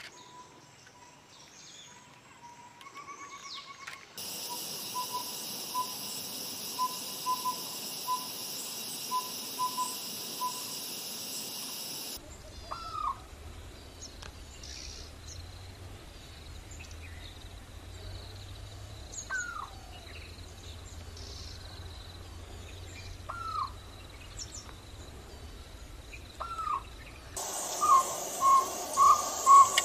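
Collared owlet whistling short, evenly pitched hoots in small groups. Then a jungle owlet gives single short curved notes a few seconds apart. Near the end the jungle owlet breaks into a loud, fast run of notes, about two a second.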